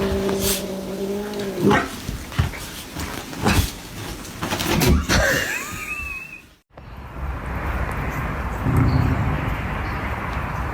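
A cat's drawn-out low yowl, held on one pitch, that breaks off about a second and a half in. Scattered knocks and scuffles follow, with a brief squeaky cry. After a sudden cut, a steady outdoor rushing noise takes over.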